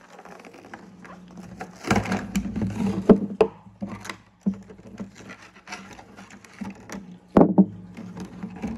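Handling noises: a string of knocks, clicks and rustles as the toy monster truck and its packaging are handled, busiest about two to three and a half seconds in and again near the end, over a low steady hum.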